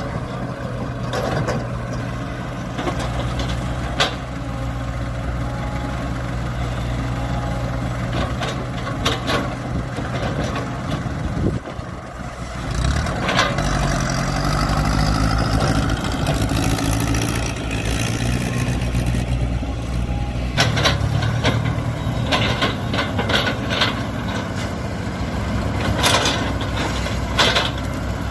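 Diesel engine of heavy earth-moving machinery running steadily. About twelve seconds in it dips briefly, then revs up and stays higher, with occasional knocks.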